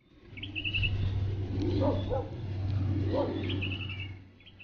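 A bird sings a short rapid trill twice while a dog barks a few times, over a low steady rumble that swells up and then fades near the end.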